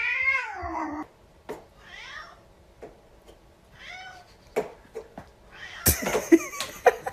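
A cat meowing: one long meow that falls in pitch at the start, then fainter meows a couple of times. Scattered knocks follow, with a cluster of sharper knocks and clatter near the end.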